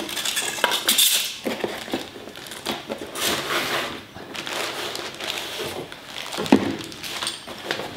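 Cardboard packaging being opened by hand: the end flap of a tripod box pulled open and its contents slid out, with a plastic bag crinkling, in a run of short rustles and scrapes. A brief knock about six and a half seconds in.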